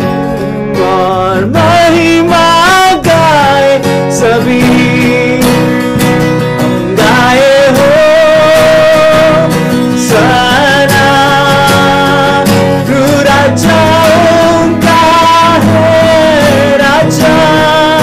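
A man singing a Hindi Christian worship song with long held notes, accompanying himself on a strummed acoustic guitar.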